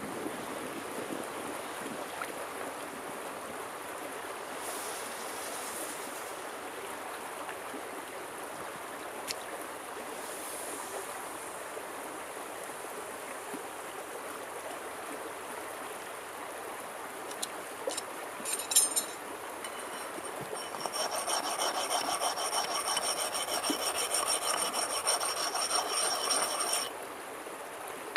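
A stream flowing, with a few sharp clinks about two-thirds of the way through. Near the end, a hand tool rasps steadily on steel for about six seconds with a thin high ringing, then stops suddenly.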